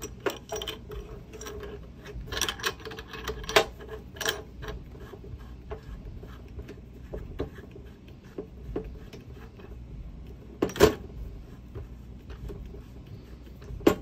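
A metal beer nut being threaded by hand onto an empty keg detector's fitting: scattered small clicks and scrapes of the threads and fingers, with a few sharper knocks, the loudest about four and eleven seconds in.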